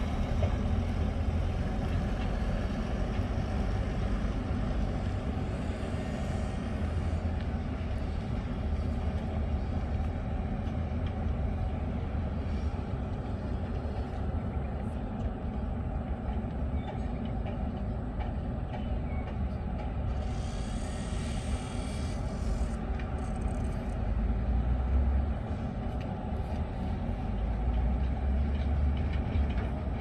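Heavy diesel dump trucks running with a steady low rumble that swells and eases, with a short hiss about twenty seconds in.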